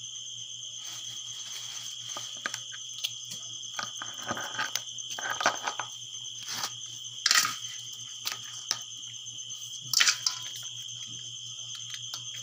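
Crickets chirping in a steady, high-pitched chorus, with rustling and clicking from handling live freshwater prawns and two louder knocks, one near the middle and one about two seconds later.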